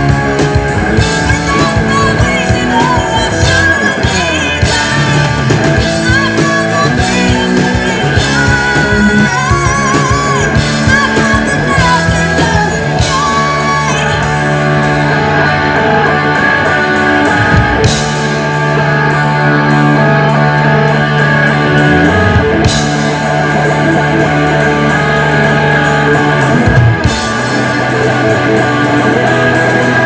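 Heavy metal band playing live: electric guitars, bass and a fast drum kit, with a woman singing over the first half and long held low guitar chords later on.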